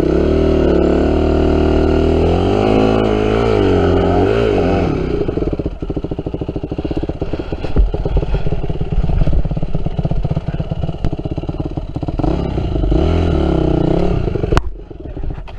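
Yamaha WR250F dirt bike's single-cylinder four-stroke engine revving up and down under throttle, then running at lower revs with clatter and knocks, and rising again near the end. A sharp click comes just before the sound drops away.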